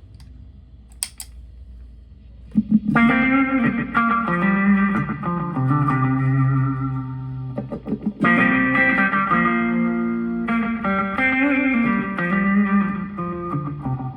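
Electric guitar played through a Tank-G multi-effects unit. Low hum and a few clicks for the first couple of seconds, then sustained notes and chords from about three seconds in, with a short break near the middle.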